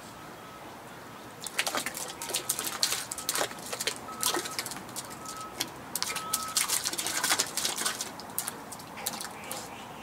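Water splashing and sloshing as a box of live loaches and their water is tipped into a shallow muddy pool: a busy run of quick splashes that starts about a second and a half in and dies down near the end.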